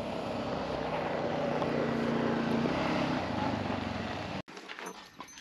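Side-by-side utility vehicle driving up a gravel track, its engine running steadily and a little louder as it nears. The sound cuts off abruptly about four and a half seconds in.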